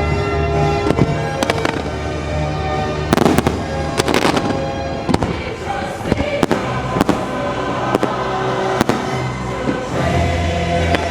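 Fireworks bursting in many sharp bangs at irregular intervals over a loud music soundtrack.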